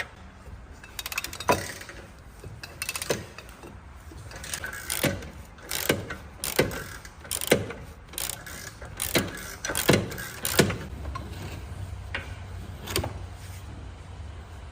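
Hand tools working on metal under a car: a string of sharp separate clicks and clanks, roughly one a second.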